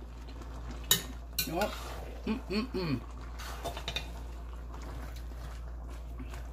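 A metal spoon stirring and scraping through chicken and vegetables in an enameled cast-iron pot, with a few sharp clicks of the spoon against the pot.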